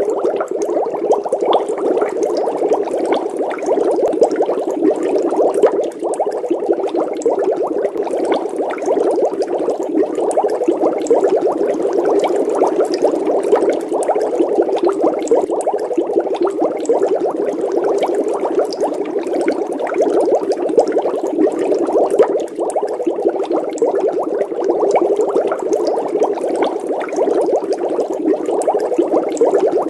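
Water bubbling steadily: a dense, rapid stream of small bubbles popping and gurgling.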